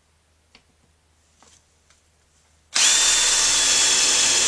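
A few faint clicks, then about two and a half seconds in a cordless drill starts driving a self-drilling sheet metal screw into the garage door's metal, running steadily with a high whine.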